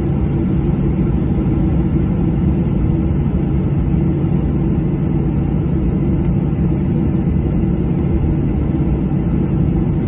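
A steady low rumble with constant humming tones from running machinery, unchanging throughout.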